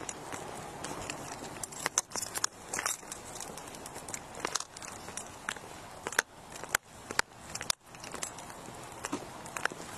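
Footsteps on a concrete sidewalk, with clothing and gear rubbing and clicking against a chest-worn body camera, heard through the camera's microphone as an irregular run of sharp clicks over a steady hiss.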